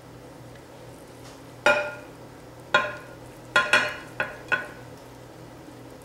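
Frying pan and spatula clinking against a plate while scrambled eggs are scooped out and served: six sharp clinks with a short ring, the last four coming quickly one after another.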